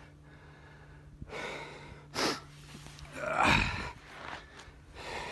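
A person breathing hard close to the microphone, out of breath from exertion. There is a short, sharp intake about two seconds in and a louder, gasping breath in the middle, with softer breaths around them.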